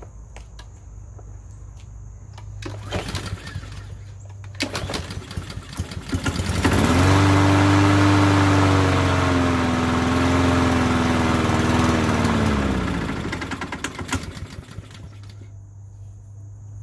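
Lawn mower's small gas engine, primed with a few drops of gas poured into the carburetor: after two short rattles it catches about seven seconds in, runs for about six seconds, then its pitch falls and it sputters and dies as the priming gas burns off. It is a sign the carburetor isn't drawing fuel from the tank, which the owner puts down to the carburetor taking in too much air.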